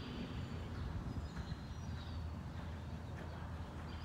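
A steady low rumble, with a few faint, scattered thuds of a horse's hooves on soft arena sand.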